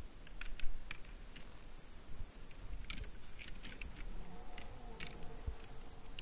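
Red deer moving through forest undergrowth: scattered snaps and crackles of twigs and brush, with one sharp crack about half a second in.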